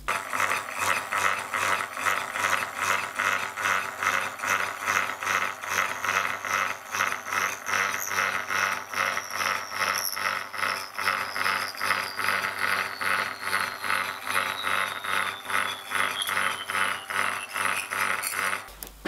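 Horizontal milling machine cutting a metal bar with a slitting saw, a steady rhythmic chatter of about three pulses a second. A faint high whine slowly falls in pitch over the second half.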